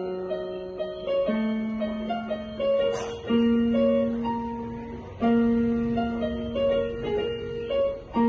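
Electronic keyboard played by hand: a melody of short notes over held low notes that change every second or two.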